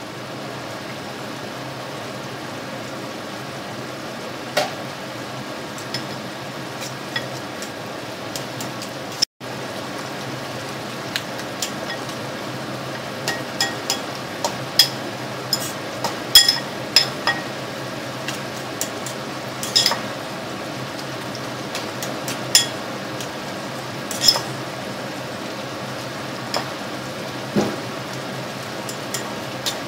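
Sliced beef frying in a wok with a steady sizzle. A spatula clinks and scrapes against the pan as the meat is stirred, most often in the middle of the stretch. The sound cuts out for an instant about a third of the way in.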